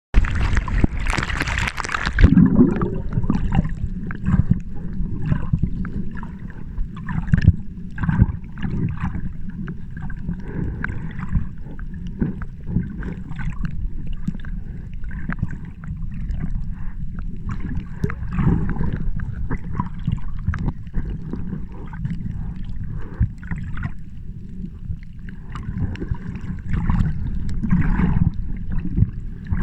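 Sea water sloshing and gurgling over a steady low rumble, with a loud hissing rush in the first two seconds.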